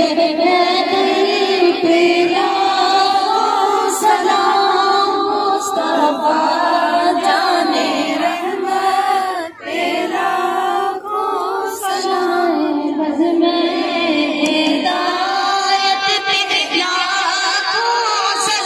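A female voice reciting a naat in song, unaccompanied, in a continuous melodic line with a short pause about halfway through.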